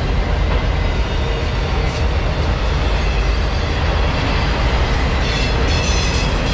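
Train rolling past with a steady loud rumble of wheels on rail, and a high wheel squeal about five seconds in.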